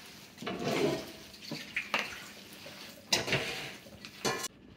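Bare hands mixing a large batch of boudin filling, cooked pork and sautéed vegetables, in a plastic ice chest: irregular squishing, rustling strokes, some sharper than others.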